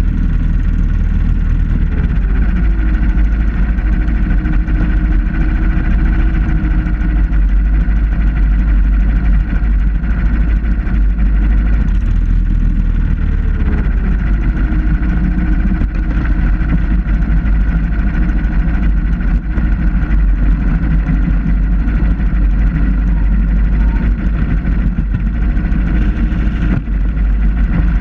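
Supermileage car's small single-cylinder engine running as the car drives, over a heavy low wind-and-road rumble on the body-mounted camera's microphone. The engine's pitch dips briefly twice, near the start and about halfway through.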